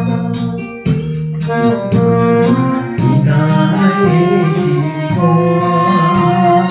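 Instrumental interlude of a pop ballad: electronic organ and keyboard chords over a steady beat.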